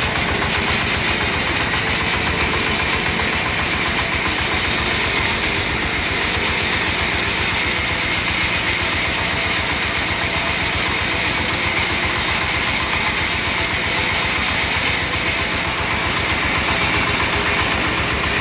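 Jiang Fa single-cylinder diesel engine idling steadily, an even fast run of firing pulses, as it drives a bandsaw mill through a rubber belt.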